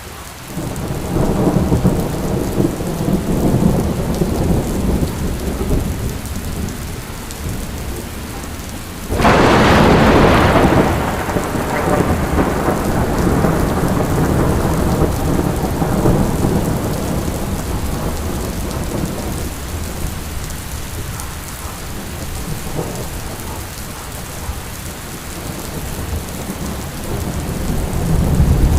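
Heavy rain pouring down, with a sudden loud thunderclap about nine seconds in that rumbles away over the next few seconds.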